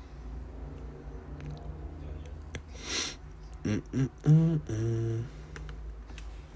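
A man humming a few short notes, the last one held a little longer, just after a brief breathy hiss.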